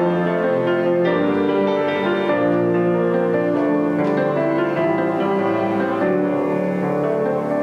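Church keyboard music, a piano playing slow chords with long-held notes.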